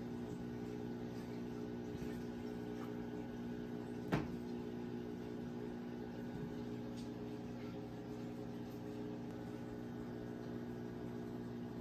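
Steady low electrical hum with one sharp tap about four seconds in.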